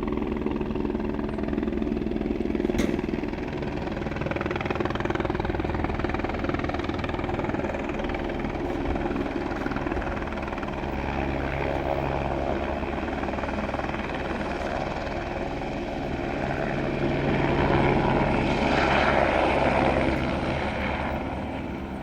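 Helicopter rotor and engine running steadily, with a fast low pulsing from the blades, growing louder for a few seconds near the end.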